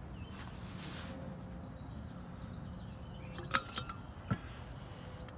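Water poured from a metal insulated bottle into a bowl of powdered eggs, a soft splashing pour in the first second or so. Then two sharp clinks with a short ring from the steel bottle as it is handled and stood on the wooden table.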